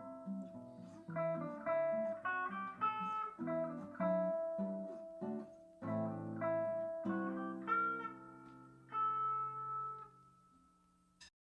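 Acoustic guitar picking out chords in a slow clean passage. The last chord rings and fades out about ten seconds in, followed by a brief click.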